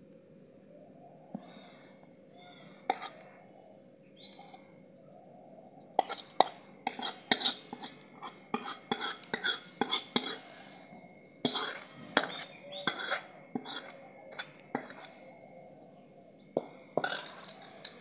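Steel spoon scraping and clinking against a kadhai and a bowl as cooked halwa is served out. A few single clicks come first, then a quick run of scrapes and clinks from about six to thirteen seconds in, with a few more near the end.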